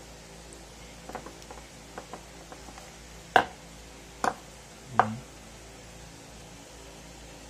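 Orthodontic wire being worked with pliers: a few light ticks, then three sharp clicks a little under a second apart, the last with a duller knock.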